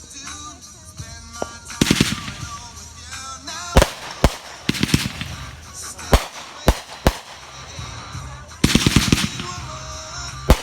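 Consumer fireworks going off: a rapid string of crackles about two seconds in, then a series of sharp single bangs, another dense crackling run near the end, and a final bang. Music plays underneath.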